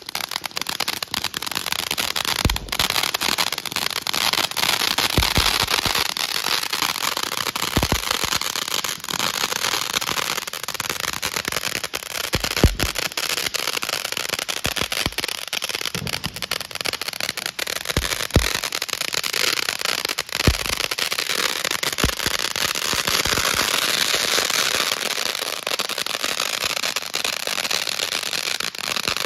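Ground fountain firework spraying sparks: a steady hiss and crackle that goes on throughout, broken by a few dull thumps.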